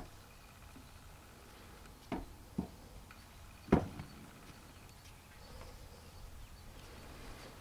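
Three sharp wooden knocks about half a second and a second apart, the last the loudest: a young foal's hooves striking wooden ground poles as it is led over them. A faint hum of insects runs underneath.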